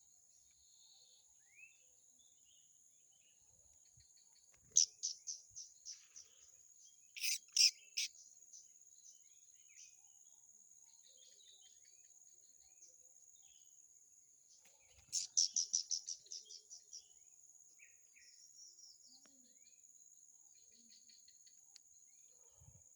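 A steady high-pitched cricket-like trill runs throughout. Over it a songbird calls: twice a quick run of about eight to ten notes that fades away, a few loud calls in between, and scattered soft chirps.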